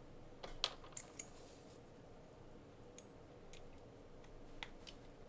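Faint, small clicks and ticks of plastic RC ball ends being worked onto turnbuckles by hand. A quick cluster of clicks comes in the first second and a half, then a few single ones.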